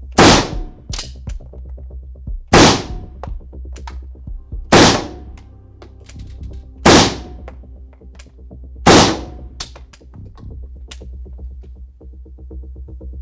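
Five single rifle shots from an AN-94 (5.45×39 mm) fired in semi-automatic mode, about two seconds apart, each ringing briefly in the indoor range. Background music with a steady beat runs beneath.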